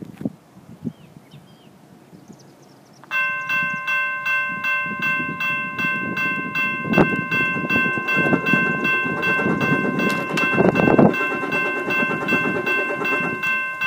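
Railroad grade-crossing bell starting to ring about three seconds in, a bright metallic ding repeating about twice a second as the crossing gates lower for an approaching train, with a couple of louder low rumbles underneath in the second half.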